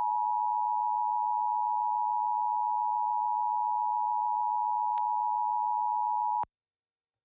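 Emergency Alert System two-tone attention signal (853 and 960 Hz together), a loud steady tone that cuts off abruptly about six and a half seconds in, with a faint click shortly before. It marks the start of a required monthly test, with the spoken test message still to come.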